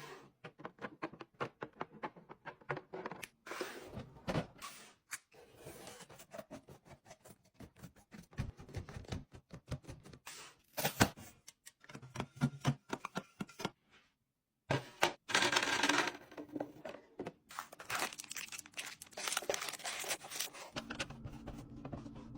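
Fridge restocking: many quick clicks and clacks of containers and packaging being handled and set down, with crinkling and tearing of plastic wrapping. The sound breaks off briefly about two-thirds of the way through, and soft music comes in near the end.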